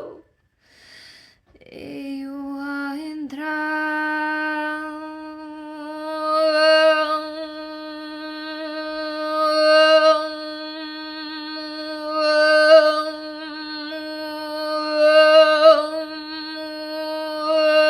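A woman's voice toning one long held note, taken up again after a breath about two seconds in, then swelling louder and brighter several times as the vowel opens.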